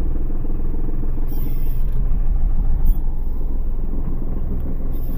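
Hyundai Xcent diesel heard from inside the cabin while driving: a steady rumble of engine and road noise. The extra noise in it is, by the mechanic's reading, coming from the wheel and suspension rather than the engine, and it is dying down.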